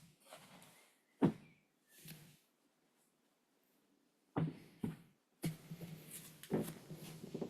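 Breathing in and out through the nose close to the microphone, in a series of breathy bursts, with rustling movement and a sharp bump about a second in.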